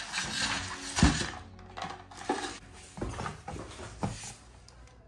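Unboxing handling noise: packaging rustling, broken by several sharp knocks as items are lifted out of the printer's box, the loudest about a second in.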